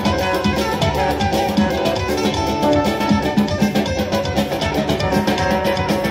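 Live band music: an electric guitar plays a fast melody of quick runs over a steady hand-beaten frame-drum rhythm, with a keyboard behind them.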